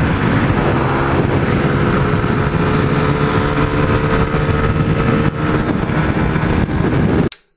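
Motorcycle running at road speed, heard under a steady rush of wind over the camera microphone. Near the end the sound cuts off abruptly with a brief high-pitched tone.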